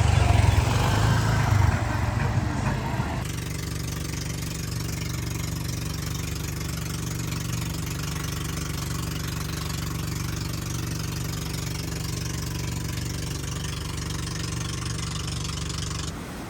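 An engine running, loud and rough for about three seconds, then cutting abruptly to a steady, even idling hum that stops suddenly near the end.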